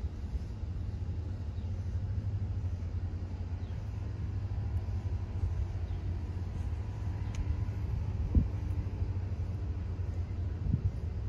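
Steady low rumble of outdoor background noise, with a faint distant engine hum in the middle and a soft thump about eight seconds in.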